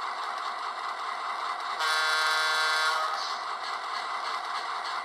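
A sound-equipped HO scale Walthers Mainline EMD SW7 model locomotive plays its diesel engine shutoff sound through its small onboard speaker. It is a steady rushing engine noise, with a brief louder tone about two seconds in that lasts about a second.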